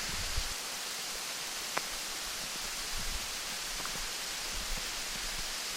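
Waterfall's falling water making a steady, even rush, with a few faint clicks.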